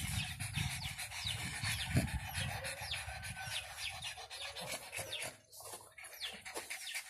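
Dogs panting close by, the panting fading about five seconds in, with many short, high, falling bird chirps throughout.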